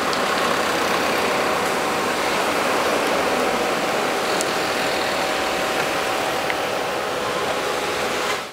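Steady outdoor background noise, an even hiss with a faint hum in it, fading out at the very end.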